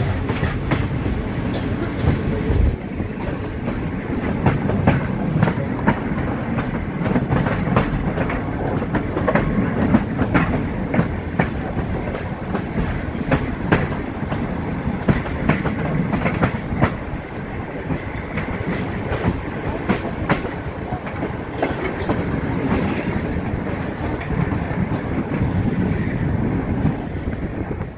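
Railway carriage running along the track: wheels clatter irregularly over rail joints and points over a steady running rumble, as the train runs into a station.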